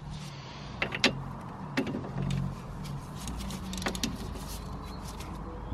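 Steel spanners clicking and knocking on the strut's camber bolt and nut as they are worked tight, a few sharp clicks over a low steady hum.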